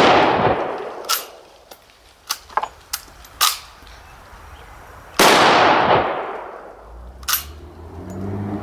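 Two shots from a World War II bolt-action rifle, one right at the start and one about five seconds in, each dying away over about a second. Between the shots and near the end come short metallic clicks as the bolt is worked to chamber the next round.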